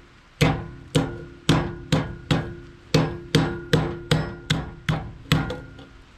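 Hand hammer striking metal about thirteen times in a quick, fairly even rhythm, two to three blows a second, each ringing briefly. The blows are flattening cotter pins wrapped around a pipe jig, which rests on a steel trailer frame.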